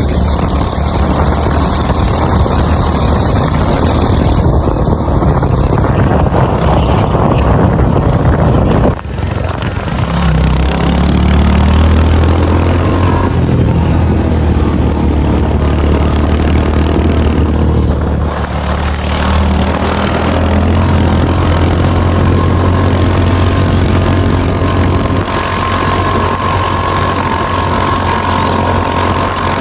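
Motorcycle engine running on the ride, with a rushing noise over it for the first nine seconds. The sound then changes abruptly to a steadier, low engine hum.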